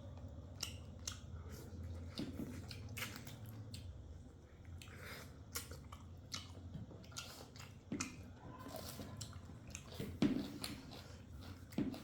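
Close-up eating sounds: chewing pork, mustard greens and rice, with many short, sharp clicks and smacks scattered irregularly.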